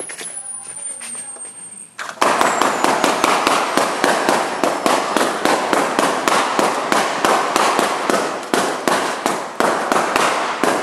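Black latex balloons bursting one after another as a green laser beam burns through each in turn, a rapid string of sharp pops about three to four a second. The pops become much louder about two seconds in.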